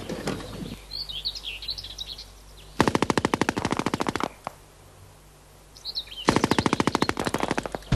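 Machine gun firing two rapid bursts, each about a second and a half long, a few seconds apart. Birds chirp faintly before each burst.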